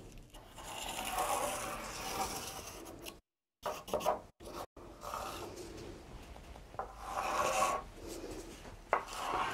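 A white marking stick scratching along a rough-sawn white oak board in several strokes, each up to about a second long, as lines are drawn onto the wood.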